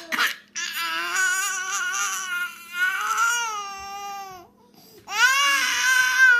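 Baby crying in two long wails, the first lasting about four seconds and the second starting after a short break about five seconds in: an infant upset at having her pacifier taken by her twin.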